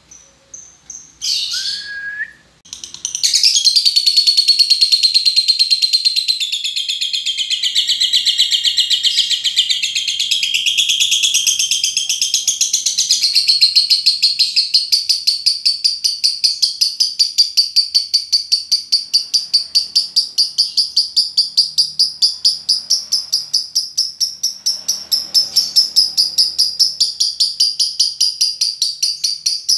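Lovebird's ngekek: a few short chirps, then from about three seconds in a long, unbroken, high-pitched chattering trill that pulses several times a second and runs on for more than twenty-five seconds.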